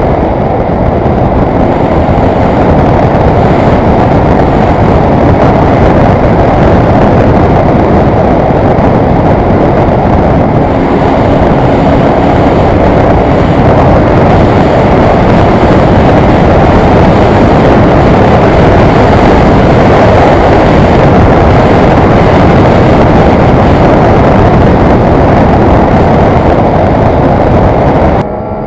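Suzuki GT550J motorcycle under way at road speed. Its air-cooled two-stroke three-cylinder engine is largely buried in a loud, steady rush of wind on the microphone. Near the end the sound cuts abruptly to a quieter, clearer engine note.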